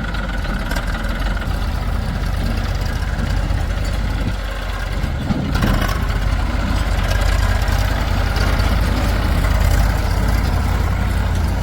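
Heavy diesel engine running steadily, with a brief change in its sound about five and a half seconds in and slightly louder running afterwards.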